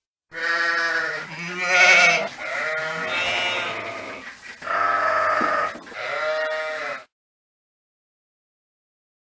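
Sheep bleating: about five long, wavering bleats in close succession, cutting off abruptly about seven seconds in.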